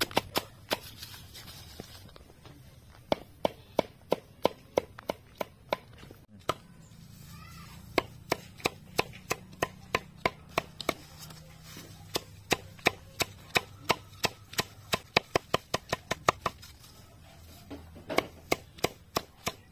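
Machete chopping a bundle of leafy greens on a wooden stump block: rapid, even chops of about four a second, each blade stroke landing on the wood through the leaves, with a couple of short pauses.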